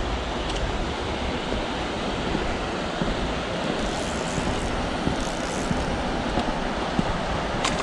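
Steady rushing noise of wind on the microphone mixed with flowing river water running high after rain, with a few faint ticks.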